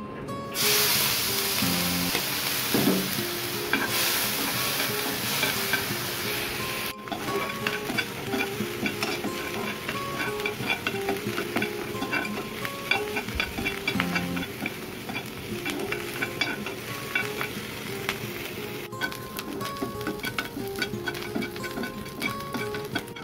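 Small shrimp heads and shells sizzling in hot oil in a frying pan. The sizzle starts suddenly about half a second in as they go into the oil. A spatula stirs them, clicking and scraping against the pan.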